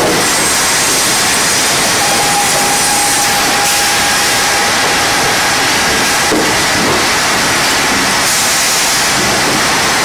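Sawmill machinery running: a loud, steady rushing noise with no breaks, and a faint whine between about two and five seconds in.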